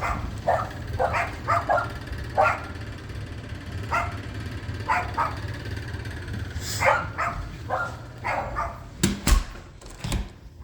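A dog barking repeatedly in short, irregular barks. A couple of sharp knocks come near the end.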